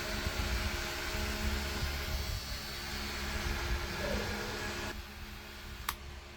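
Small electric motor running steadily with a hum and hiss; about five seconds in its sound drops off sharply, and a single click follows a second later.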